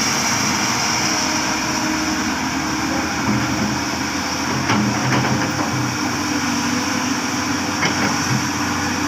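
Heavy earthmoving machinery running steadily: a diesel engine hum with a steady high whine, and a few sharp knocks around the middle and one near the end.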